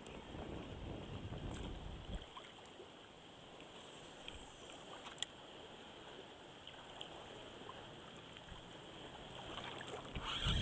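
Choppy water sloshing and lapping around a wading angler, with wind rumbling on the microphone, heavier in the first two seconds and again near the end, and a few faint clicks.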